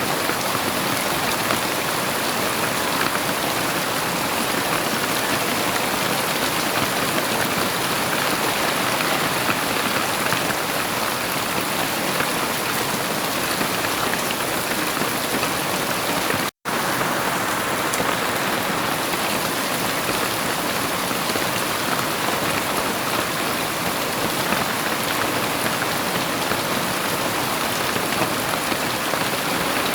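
Heavy rain falling steadily, a dense, even hiss of drops. It cuts out completely for a split second a little past halfway, then resumes unchanged.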